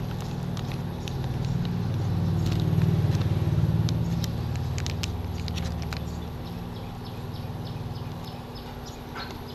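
Pan of water with dried squid and dried shrimp heating toward a simmer, with small bubbles popping and crackling irregularly. Under it a low rumble swells about three seconds in and then fades.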